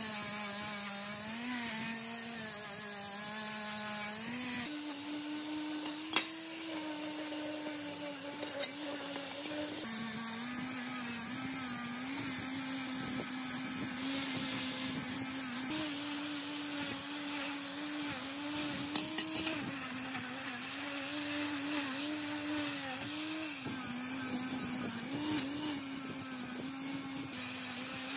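A power tool's electric motor running steadily in several short edited clips, its pitch wavering and dipping as it takes load, with a sharp click about six seconds in.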